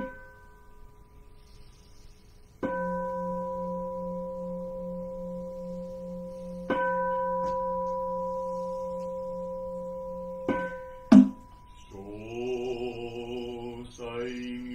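Large Buddhist bowl bell (keisu) struck with a padded striker: two full strokes about four seconds apart, each ringing on with a slow pulsing hum under a clear higher tone. A lighter stroke follows, then a sharp knock that cuts the ringing short.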